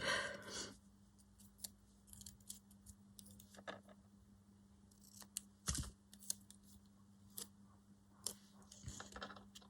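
Scissors snipping paper in short, scattered cuts, with light rustling of the paper between them, over a faint steady hum.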